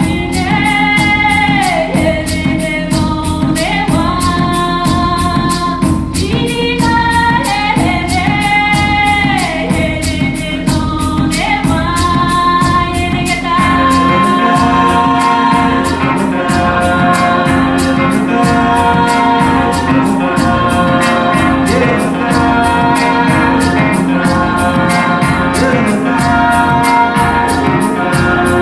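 Recorded music with a singing voice played back through large Viva Audio multi-horn loudspeakers. The voice slides between long held notes, and about 14 s in gives way to steady sustained tones over a fast, even pulse.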